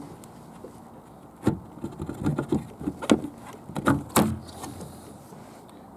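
Black plastic hatch cover on the front storage compartment of a Bluefin Kingfisher kayak being unlatched and lifted off: a string of sharp clicks and knocks from about a second and a half in until after four seconds.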